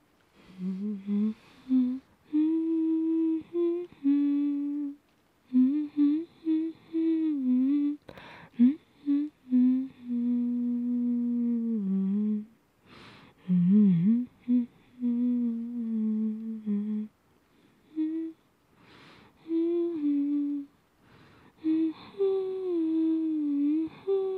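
A woman humming a slow, gentle melody close to the microphone, in phrases of one to several seconds with breaths between them.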